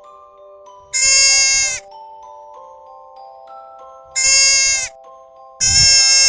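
A bleating farm animal (sheep or goat type) calling three times, the first two calls short and the third longer. Soft background music with sustained chime-like notes plays under the calls.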